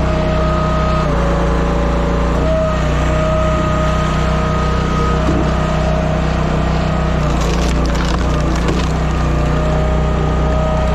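TimberWolf Alpha 6 hydraulic log splitter running steadily, its engine and pump tone dipping in pitch now and then as the ram takes up load. About seven to nine seconds in, a log cracks and splinters as it is forced through the multi-way wedge.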